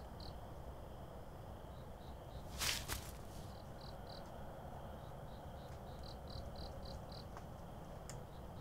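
Crickets chirping in short, evenly spaced pulses, a few a second, over a soft night-time background hum. A brief burst of noise comes about two and a half seconds in.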